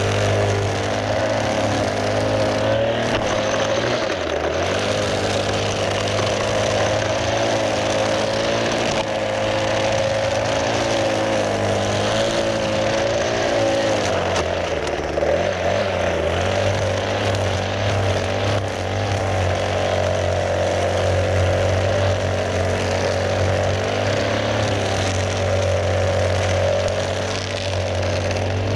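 Gas string trimmer running with its small engine held at high speed, the pitch wavering up and down as the line cuts through overgrown grass and weeds, dipping and recovering about halfway through.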